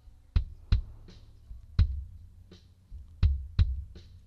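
Kick drum track from a band rehearsal recording playing back: low, punchy thumps in a rhythm of a quick double hit, a single hit, then another double hit. Fainter, higher ticks between the kicks are spill from the rest of the drum kit.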